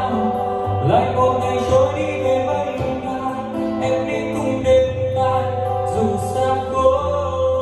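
Music: a Vietnamese pop ballad between sung lines, with held notes over a steady bass.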